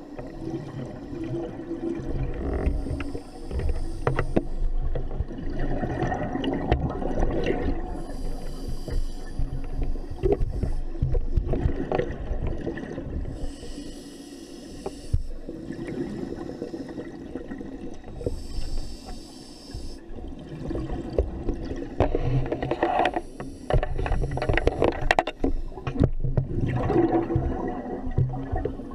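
Scuba diver breathing through a regulator underwater: a hiss on each inhalation, roughly every five seconds, alternating with the low bubbling rumble of exhaled air.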